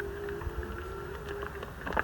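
Wolves howling: a long, slightly wavering howl held at one pitch.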